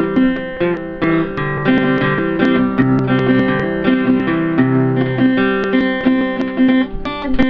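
Background music led by guitar, plucked notes changing at a steady pace.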